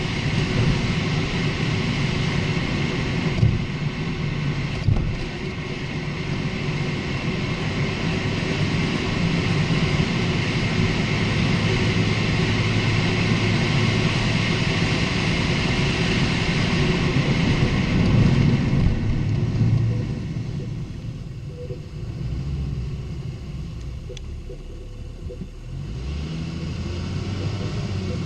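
Lexus IS250 (GSE20) being driven, with steady road and running noise and short knocks about three and a half and five seconds in. The knocks fit the rattling, clunking noise its suspension makes over bumps, which the owner suspects comes from a stabilizer link. The noise drops for a stretch about two-thirds of the way through.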